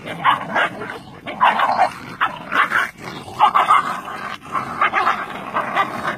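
Cane Corso puppies play-fighting, with short high yips and barks coming about twice a second.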